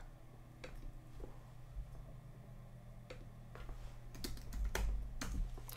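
Computer keyboard and mouse clicks: a few scattered clicks, then a quick run of keystrokes near the end as a keyword is typed, over a faint steady low hum.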